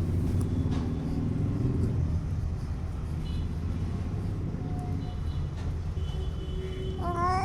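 Steady low rumble in the background. Near the end a baby starts to vocalize with a high, gliding coo.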